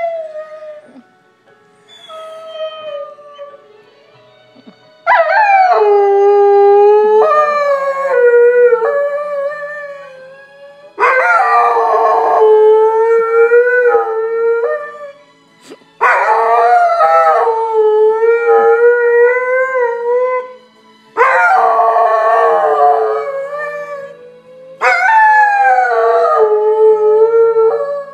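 Dog howling, five long howls in a row starting about five seconds in, each a few seconds long, sliding down in pitch at the start and then wavering. It is howling along to television theme music that plays faintly underneath.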